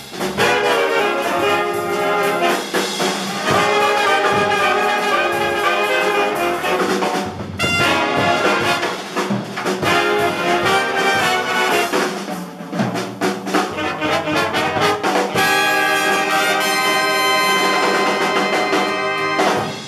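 Jazz big band playing: saxophone, trombone and trumpet sections over drums and upright bass. About fifteen seconds in the band holds a long final chord, which cuts off near the end.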